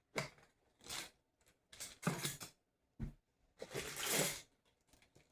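Small metal parts of a Federal 900 padlock clicking and clinking as the lock is taken apart, in about five short bursts with gaps between them.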